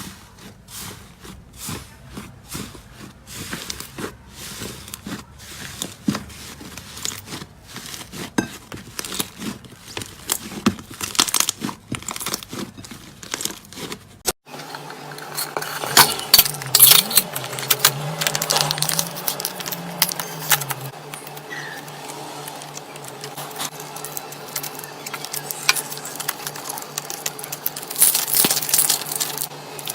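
Slime being squished and poked by hand, making many small sticky clicks, crackles and pops. About halfway through it cuts to another slime clip, where the crackling carries on over a steady low hum.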